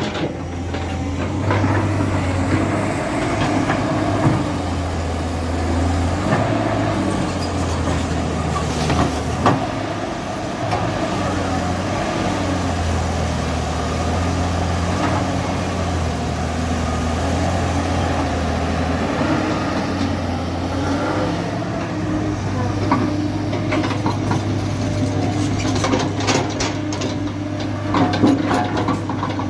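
Diesel engine of a JCB 3DX backhoe loader running steadily under working load, its low note shifting slightly up and down, with a few sharp knocks and clanks near the end.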